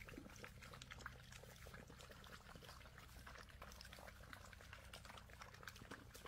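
A litter of Labrador puppies lapping water from a large stainless steel bowl: faint, rapid, irregular wet laps and splashes from many tongues at once.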